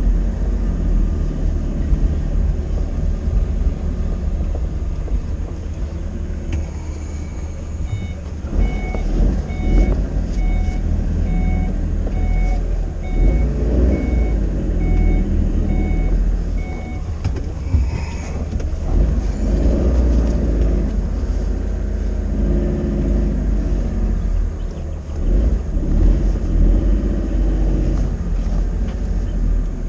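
A small work vehicle's engine running, with a reversing beeper sounding in regular short beeps for about nine seconds in the middle.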